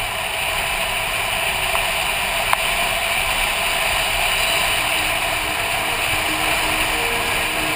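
Touring motorcycle riding at road speed: steady engine and wind noise on the bike-mounted camera, with one sharp click about two and a half seconds in. Faint music comes in during the second half.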